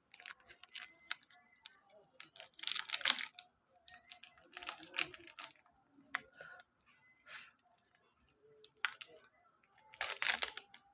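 Plastic Milo sachet being crinkled and torn open by hand, in short bursts of crackling with pauses between.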